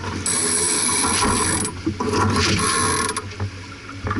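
Sailboat sheet winch ratcheting as a line is winched in, in two spells of about a second each.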